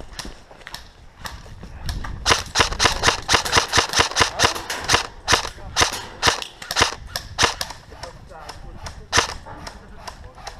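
Airsoft guns firing: a quick string of sharp single shots, then a few more spaced further apart and a last lone shot near the end.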